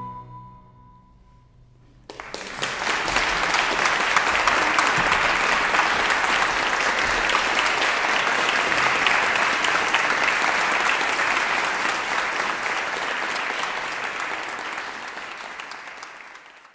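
The last chord of recorder, baroque cello and harpsichord dies away in the first second or so, then audience applause breaks out suddenly about two seconds in. The applause holds steady and fades out near the end.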